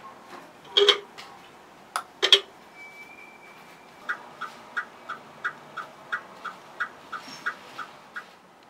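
Electronic sound effects from a model truck's sound unit: a few short, sharp blasts in the first two and a half seconds, then an even, rapid ticking about three times a second for about four seconds.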